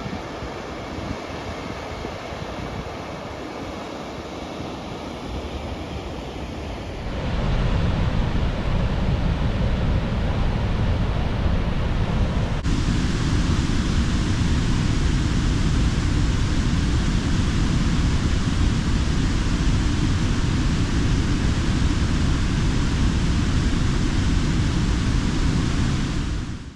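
Steady rushing roar of the Godafoss waterfall's falling water, mixed with wind noise on the microphone. It steps up louder about seven seconds in and shifts to a deeper rumble around the middle.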